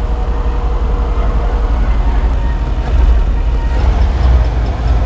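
Engine of a stripped-down Mercedes G-Wagon 4x4 convertible build, with no body panels, doors or roof, running with a deep low rumble as it drives slowly past, growing a little louder about three seconds in.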